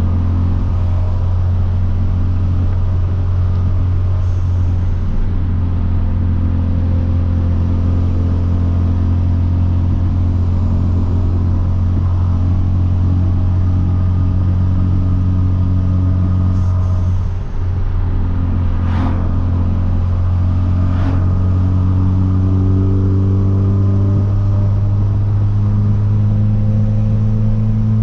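Hyundai Veloster Turbo's 1.6-litre turbocharged four-cylinder, with catless downpipe, running in a steady cruise drone. There is a brief drop about two-thirds of the way through, and near the end the engine pitch rises slowly as the car accelerates.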